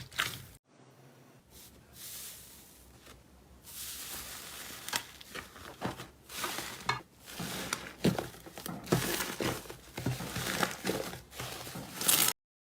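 Slime being squeezed and worked by hand, making irregular crackling, popping and squelching sounds. They are quiet at first and denser and louder from about four seconds in, then cut off abruptly near the end.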